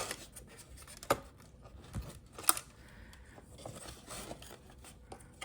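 Small plastic parts of a car side-mirror assembly being handled and fitted together: a few separate sharp clicks with light rubbing between them, the sharpest click about two and a half seconds in.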